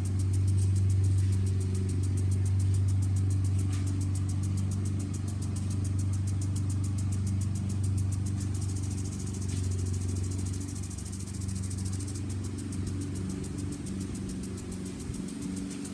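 A lawn mower engine runs at a steady speed as a low, even drone. A lawn sprinkler's faint, high, rapidly ticking spray sits above it.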